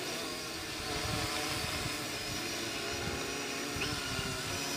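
Quadcopter's electric motors and propellers humming steadily, with several tones that waver slightly in pitch as the drone turns. A low rumble sits underneath.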